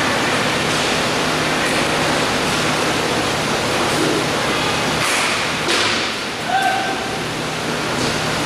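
Indoor roller hockey rink during play: a steady rushing noise, with a couple of sharp knocks about five seconds in and brief faint distant shouts.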